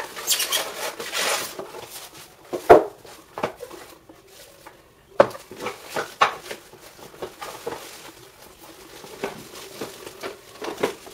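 Unpacking sounds: the flaps of a cardboard box scraping and rustling open, then a sharp knock a few seconds in and more clunks and plastic rustling as wrapped juicer parts are lifted out of the box.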